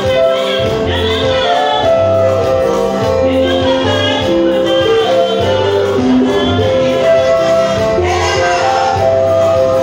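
A group of women singing a gospel song, accompanied by an electric keyboard holding chords over a pulsing bass line.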